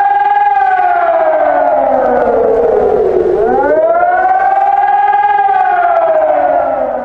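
Emergency alarm siren wailing: a single pitched tone that slowly falls away, sweeps quickly back up about halfway through, holds briefly, and falls away again.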